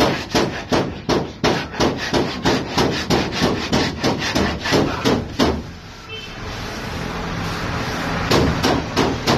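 Sandpaper rubbed by hand over white body filler on a car's door panel, a quick rasping stroke about three times a second. The strokes stop for close to three seconds past the middle, then start again near the end.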